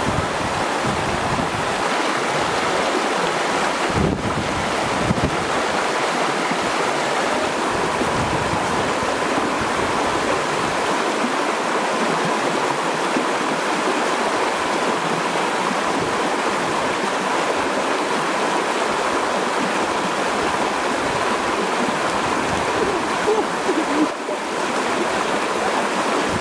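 Shallow river rushing over rocks, a steady hiss of running water, with a few low bumps in the first few seconds.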